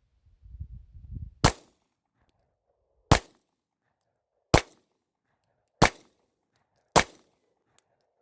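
Five shots from a Smith & Wesson M&P9 9mm pistol firing 115-grain Federal ammunition, spaced about a second to a second and a half apart.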